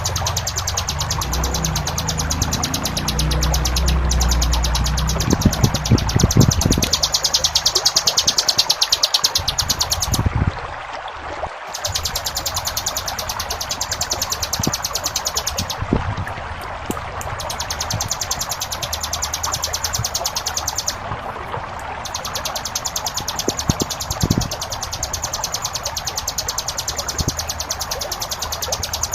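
Ciblek gunung (a prinia) giving its rapid, high buzzing trill in long runs with a few short breaks, over the steady rush of flowing water.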